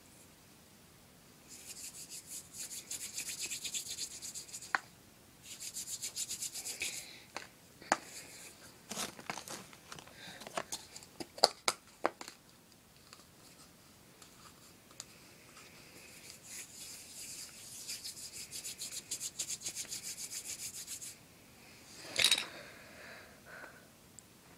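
Hands rubbing quickly back and forth, rolling modelling clay between the palms into a thin strand, in three spells of rapid strokes. Several sharp clicks and taps come in the middle, and a louder knock comes near the end.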